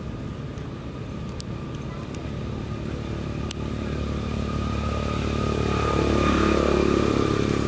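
A motor vehicle's engine running, growing steadily louder over several seconds to a peak near the end and then starting to ease off, as a vehicle passing by does.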